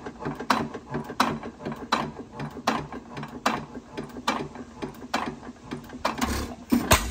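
A 6 hp headless Witte single-cylinder hit-and-miss engine running, its flywheels turning. Its moving parts clack a little more than once a second, with lighter clicks between, while it coasts between firings. Near the end comes one heavier, deeper stroke, typical of the engine firing once to keep its speed up.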